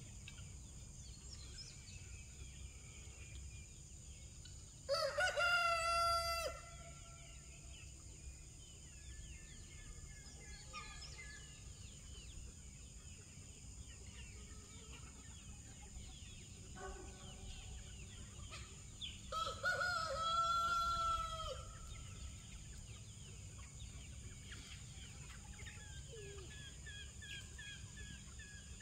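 Rooster crowing twice, about fourteen seconds apart, each crow lasting about a second and a half, with softer clucking and small chirps in between.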